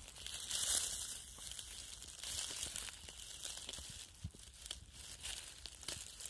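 Dry fallen leaves crinkling and rustling as a hand brushes through them to clear and lift a porcini mushroom from the leaf litter, with small crackles throughout and a louder burst of rustling about half a second in.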